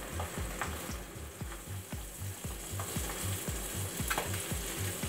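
Sea bass fillets frying skin side down in a hot non-stick pan, a steady sizzle, with a few light taps and scrapes of a wooden spatula on the pan. A low pulsing hum, about two pulses a second, runs underneath.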